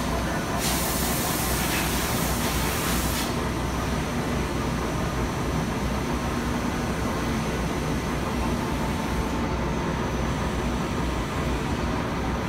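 Dainichi DL65 CNC lathe running with its spindle turning, a steady machine noise with a low hum. A loud hiss comes in just after the start and lasts about two and a half seconds.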